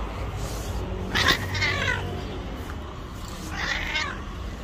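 A white cat meowing twice: a longer, louder call about a second in and a shorter one near the end.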